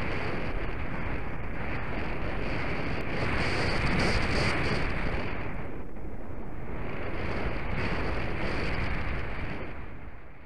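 Wind blowing in gusts, a steady rushing that swells twice and fades out near the end.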